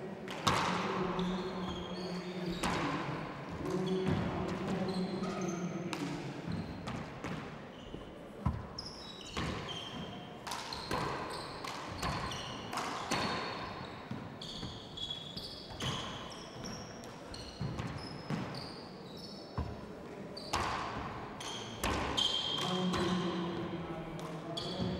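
Gaelic handball rally in a 40x20 court: the hard rubber ball smacks off the walls and floor again and again at irregular intervals, with short high squeaks of players' shoes on the wooden floor. Voices murmur in the background at the start and again near the end.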